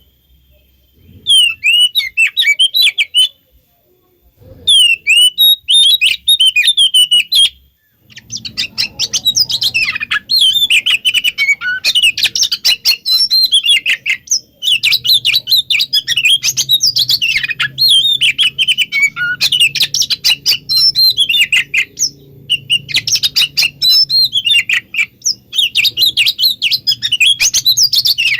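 Oriental magpie-robin (kacer) singing rapid, varied whistled phrases in the excited 'konslet' style used as a lure: a few short bursts with pauses at first, then unbroken song from about eight seconds in, over a faint low hum.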